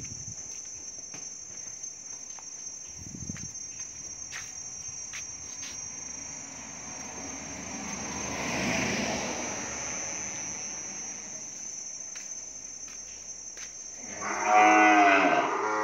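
Cow mooing: one long, loud call near the end, over a quiet pen with scattered clicks.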